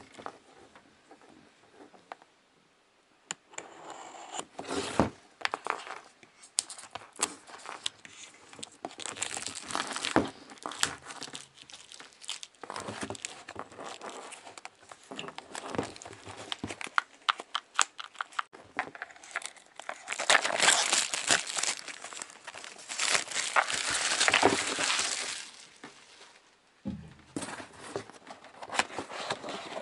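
Plastic shrink-wrap being torn and crumpled off a cardboard box by hand: irregular crinkling and tearing, loudest and densest about twenty to twenty-five seconds in.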